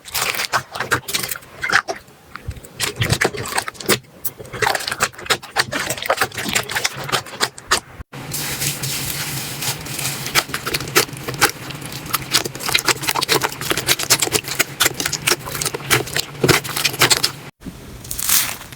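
Slime being squeezed and pressed by hand, a dense run of sticky clicks, pops and crackles that breaks off abruptly twice and picks up again.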